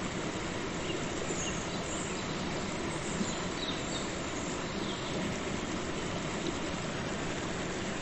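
Waterfall and river water rushing steadily, an even, unbroken wash of noise.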